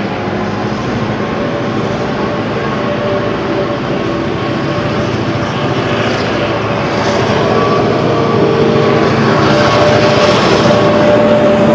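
A pair of T class diesel-electric locomotives running as they approach and pass, a steady engine drone that grows gradually louder.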